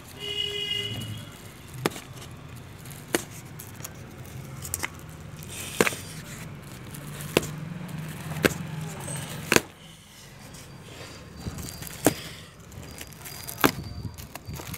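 Corrugated cardboard box being pulled and torn open by hand: a series of sharp snaps and cracks, roughly one every second or so.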